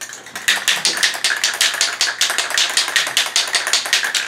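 Aerosol spray-paint can being shaken to mix the paint, its mixing ball rattling in a fast even rhythm of about six clacks a second, stopping just before the end.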